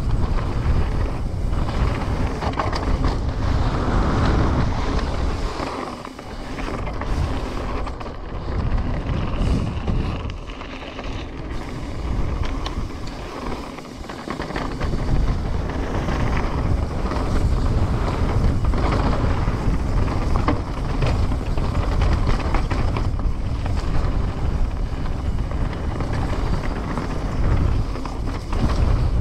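Trek Slash 9.9 enduro mountain bike descending a dirt trail: wind rushing over the microphone and tyres rumbling over the ground, with frequent sharp clicks and knocks of the bike rattling. The noise eases briefly about six seconds in and again from about ten to fourteen seconds.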